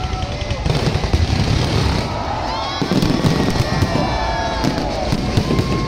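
Aerial fireworks shells bursting overhead in a continuous barrage, with repeated sharp bangs over a steady din.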